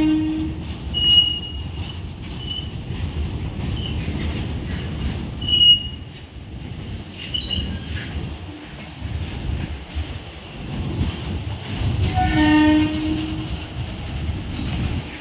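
BCACBM car-carrier wagons rolling past with a steady rumble of wheels on rail, broken by several short high-pitched wheel squeals. A train horn sounds briefly at the start and again for about a second near the end.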